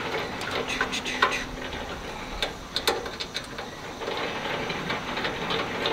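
Screwdriver turning a small screw tight into a metal smoker-leg bracket: irregular light clicks and ticks as the driver works the screw.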